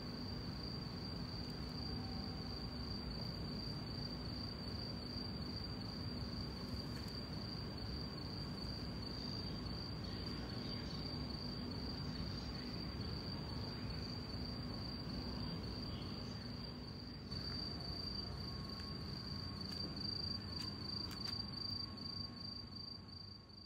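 A cricket trilling steadily in one high, finely pulsing tone over low outdoor background noise, fading out at the very end.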